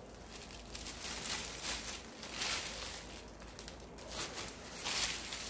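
Tissue paper and plastic wrapping rustling and crinkling in several surges as a leather handbag is unwrapped and pulled free.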